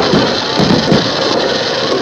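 Fireworks display: aerial shells going off with a few low thumps in the first second over a continuous crackle, with music playing and a crowd in the background.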